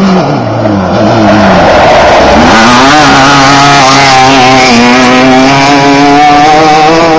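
Off-road race buggy of the 1600 class, its air-cooled Volkswagen 1600 cc engine very loud as it passes close by. The note drops over the first two seconds, then climbs sharply as it accelerates away and holds at high revs.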